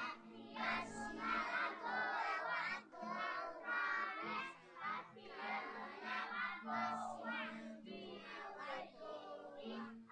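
Children singing together over backing music.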